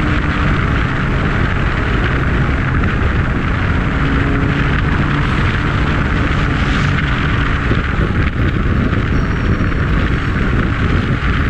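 Loud, steady vehicle noise: a dense rushing hiss with a low hum underneath.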